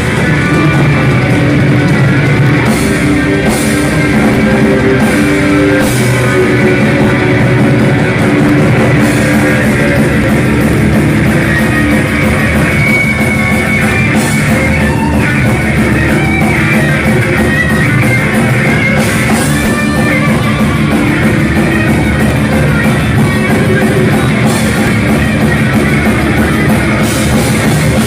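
Heavy metal band playing live: distorted electric guitars over a drum kit with crashing cymbals, loud and continuous.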